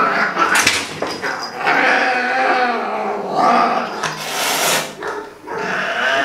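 Angry, frightened cat yowling and growling while it is held down, in a string of long drawn-out cries that waver in pitch, with loud hissing bursts near the start and about four seconds in.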